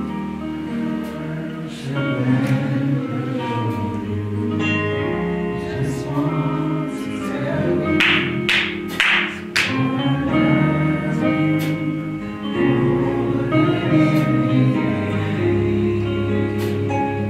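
Gospel worship song: voices singing over instrumental accompaniment.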